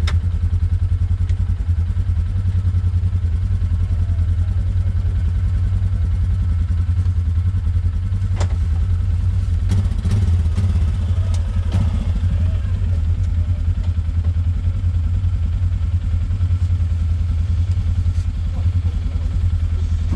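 Polaris RZR Pro XP side-by-side's turbocharged twin-cylinder engine running at a steady pace with a deep, pulsing drone. A few knocks and rattles come through about halfway.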